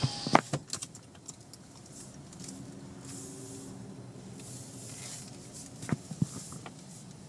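Faint, low noise inside a car cabin as the car creeps forward at low speed. There are a few sharp knocks in the first second and two more about six seconds in.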